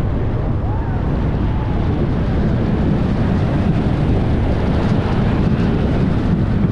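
Wind rushing over the microphone at speed, with the Morgan steel roller coaster train rumbling along its track as it dives down a drop and into the next climb. The noise is loud and steady, a little louder in the second half.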